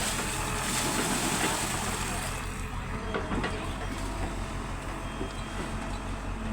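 Steady rumbling vehicle noise with some rattling, with no clear speech over it.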